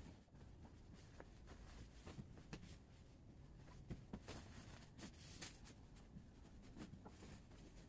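Near silence: faint room tone with soft, scattered knocks and a few brief rustles, as pillows and bedding are handled and set on a bed.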